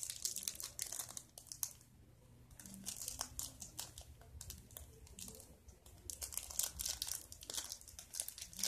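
Small clear plastic packet of sequins crinkling and crackling as fingers pick and pull at it, trying to get it open. The crackling comes and goes, dying down for a couple of seconds after about a second and growing busier again near the end.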